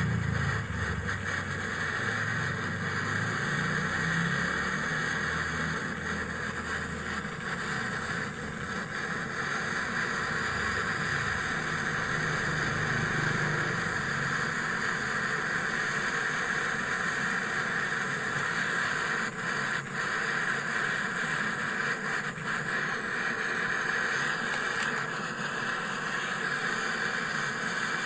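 A small motor running steadily with an even hiss, heard while a repaired refrigerator is charged with refrigerant. A low hum underneath fades away over the first several seconds.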